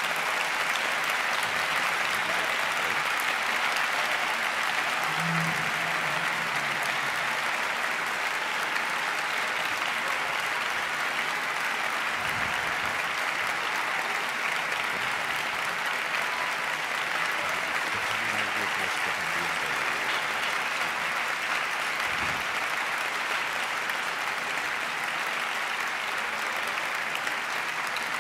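Audience applauding, a steady sustained clapping that holds at an even level throughout.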